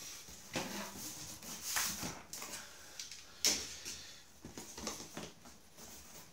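Cardboard rustling and scraping in irregular bursts as the flaps of a box are folded open and the packing inside is handled.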